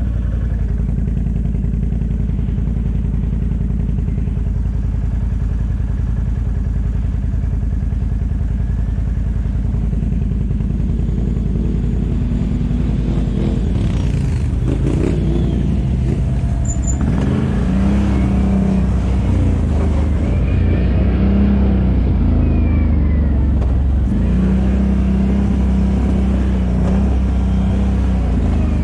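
ATV engine running. It is steady at first, then the engine note rises and falls repeatedly from about halfway through as the throttle changes.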